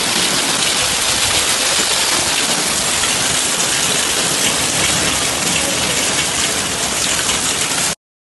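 Heavy downpour mixed with hail: a dense, steady hiss of rain with small hailstones ticking on hard surfaces. It cuts off abruptly near the end.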